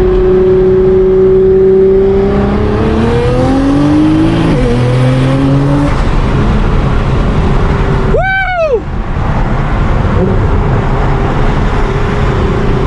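Twin-turbo V6 of a heavily modified Nissan R35 GT-R, heard from inside the cabin, running steadily and then revving up under acceleration. The pitch climbs, drops back at a gearshift about four and a half seconds in, and climbs again. It then settles into a loud, even rush, with a brief whistle that rises and falls about eight seconds in.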